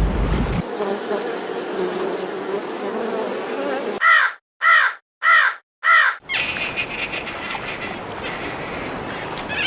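A crow cawing four times in quick succession, harsh calls that rise and fall in pitch. It is followed by a steady, dry buzzing rattle.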